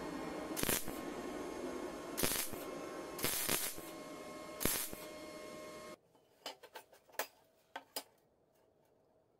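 Wire-feed (MIG) welder tacking a bolt onto steel: four or five short bursts of arc crackle over the machine's steady hum. About six seconds in, this gives way to a few light clicks of a metal square and ruler being set down on a steel plate.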